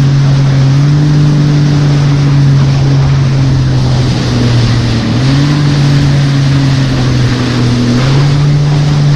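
Jet ski engine running at speed over a steady hiss of wind and water. Its note drops about four seconds in and climbs back a second later as the throttle is eased and reopened.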